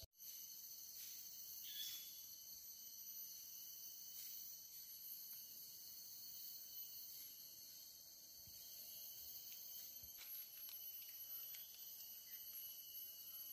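Faint, steady chorus of forest insects such as crickets, several high-pitched buzzing tones held level.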